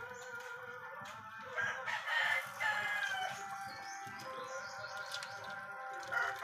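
A rooster crowing, loudest from about a second and a half in.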